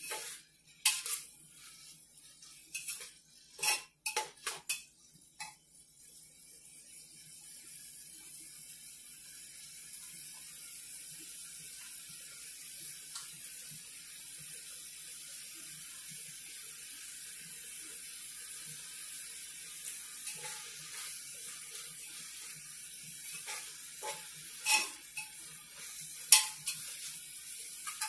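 A steel spoon clinks and scrapes against an aluminium pressure cooker as onions and tomatoes are stirred in hot oil, then a steady sizzle of the frying vegetables. Near the end, a few more sharp knocks of the spoon on the pot.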